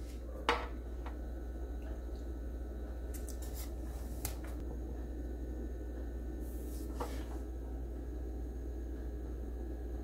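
Light clicks and knocks of a metal cake server against an aluminium baking pan, the sharpest about half a second in and another few a few seconds later, over a steady low hum.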